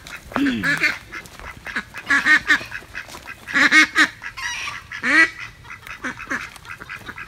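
Domestic ducks quacking: a string of short, loud, raspy quacks, several in a row, with the loudest about two, four and five seconds in.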